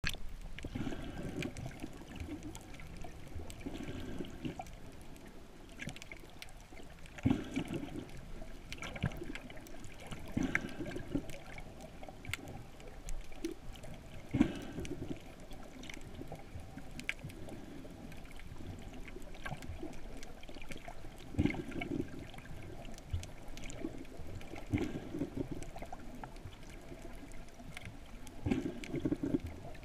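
Muffled underwater water noise picked up by a swimmer's camera: water sloshing and trickling around the housing, with a low swell about every three seconds and scattered faint clicks.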